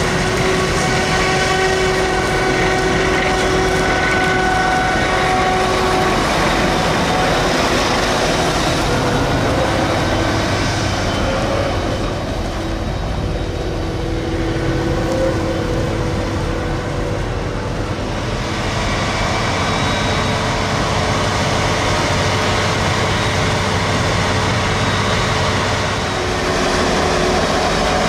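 Claas Jaguar 990 forage harvester running steadily under load while chopping maize: a continuous heavy engine drone with several steady whining tones over it. It eases off a little around the middle and picks up again.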